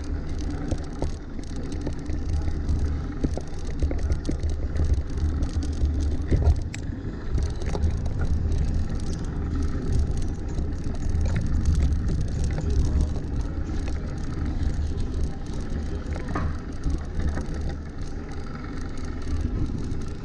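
Fixed-gear bicycle riding over wet cobblestones: tyre noise with a steady low rumble and frequent small rattles and knocks from the bumpy surface.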